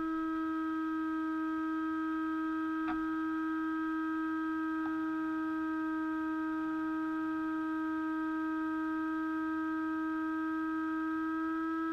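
A steady electronic whine at one unchanging pitch with several overtones, from the stationary FPV RC car's electronics. Two faint clicks sound about three and five seconds in.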